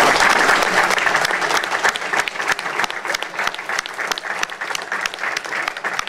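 Audience applauding: many people clapping at once, loudest at the start and easing slightly.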